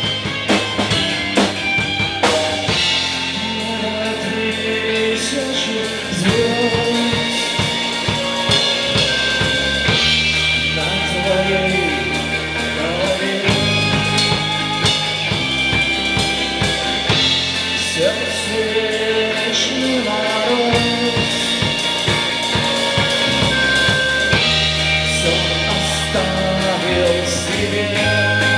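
Live band playing a song, with a drum kit keeping a steady beat of bass drum and snare over sustained bass notes and other instruments.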